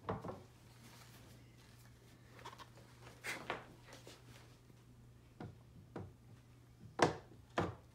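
Scattered knocks and clicks of large statue parts being handled and fitted together, with the strongest knock near the end. A faint steady low hum runs underneath.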